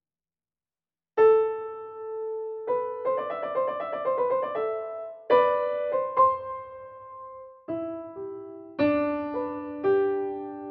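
Light piano-like keyboard music. It starts about a second in with a held note, goes into a quick run of notes, then plays separate struck chords.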